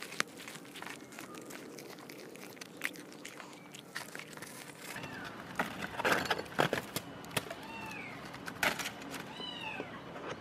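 Cats chewing grilled fish close to the microphone, a rapid run of small wet clicks and crunches. Then aluminium foil crinkles loudly as fish is tipped out of it, and a cat meows about three times near the end.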